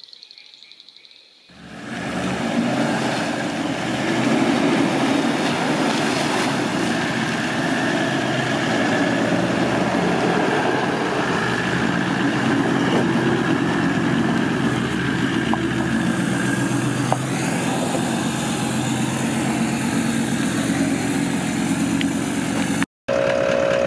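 Four-wheel-drive vehicle driving along a dirt track, a steady mix of engine and tyre noise. It starts suddenly about a second and a half in and cuts out briefly near the end.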